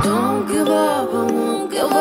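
Background music: a sung vocal line over a held low note, with no drum beat.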